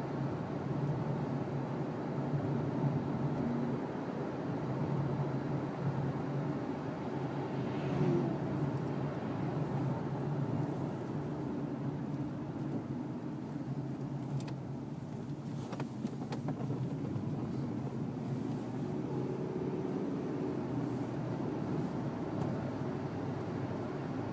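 2007 Dodge Dakota pickup running, a steady hum of engine and road noise, with a few light clicks around the middle.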